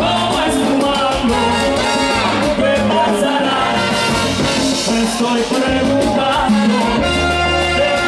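Live salsa band playing a song, amplified through stage loudspeakers: percussion and bass under sung vocals.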